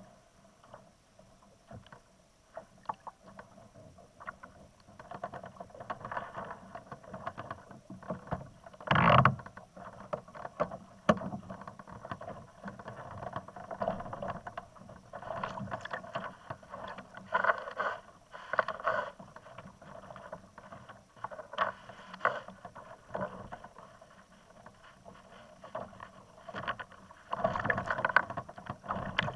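Sea water slapping and splashing against a plastic kayak's hull as it moves through choppy water, mixed with scattered small clicks and knocks. A loud splash comes about nine seconds in, and a longer stretch of heavier splashing comes near the end.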